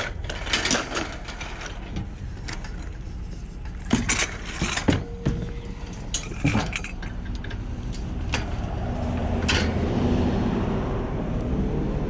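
Scattered knocks and clinks from a curbside item, likely a folded bed frame, being picked over and handled, over the steady low rumble of an idling vehicle.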